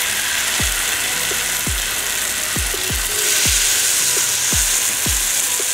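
Marinated pomfret sizzling in butter on a hot tawa; the sizzle grows louder about three seconds in as a second fish goes onto the pan. Background music with deep bass thuds plays throughout.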